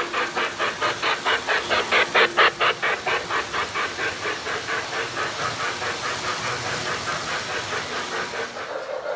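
Lionel 700E New York Central Hudson model steam locomotive chuffing at about five beats a second as it runs past, loudest about two seconds in and fading as it moves away. Under the chuffs, its passenger cars rumble along three-rail track.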